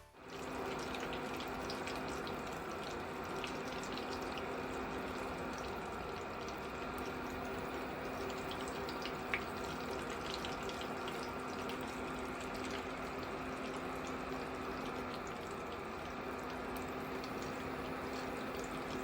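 Steady rush of running water, like a tap running into a sink, with a low hum underneath that drops out briefly twice and a few faint clicks.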